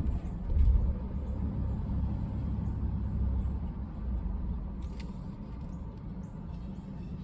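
Ford F-150 PowerBoost hybrid pickup running with a low rumble that swells about half a second in and eases after about four seconds. A brief click comes about five seconds in.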